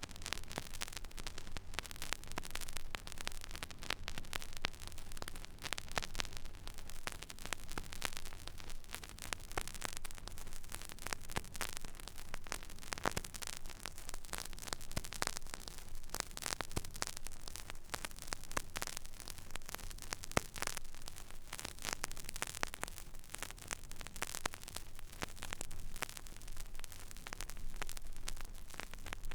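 Stylus riding the empty groove of a vinyl record: dense surface crackle and pops over a steady hiss, with a low hum underneath.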